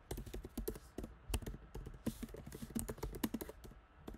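Typing on a computer keyboard: a quick, irregular run of keystrokes.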